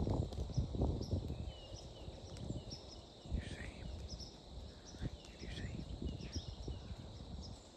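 Irregular crunching steps rustling through dry leaves, thickest in the first second and thinning out, with small birds chirping thinly above.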